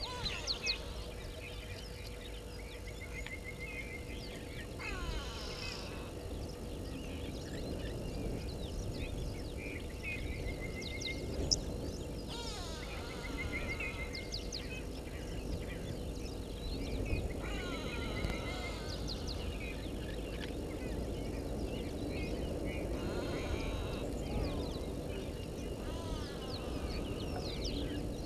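Birds calling in the bush: rows of short repeated chirps and, every few seconds, a falling whistled call, over a steady low outdoor hiss with a faint steady hum.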